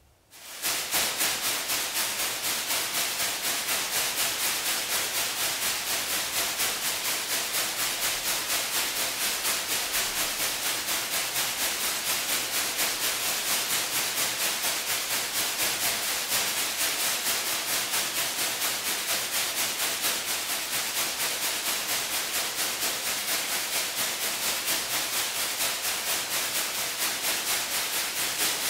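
Thin plastic carrier bags rustling, shaken in a fast, even rhythm of about four to five crinkling pulses a second. The sound starts abruptly about half a second in.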